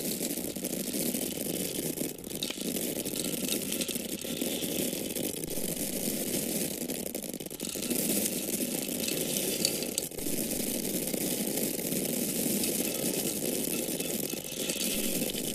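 Dry grain kernels pouring and falling onto one another in a dense, continuous patter, with short breaks about two, four, seven and ten seconds in.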